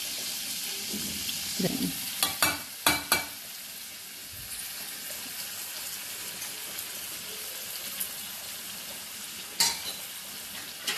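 Chopped garlic sizzling in melted butter in a metal kadai, a steady hiss. A few sharp knocks come about two to three seconds in and once more near the end.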